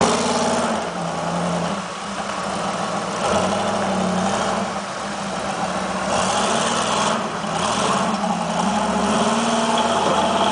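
Off-road truck engine rock crawling, its note rising and falling as the throttle is worked on and off.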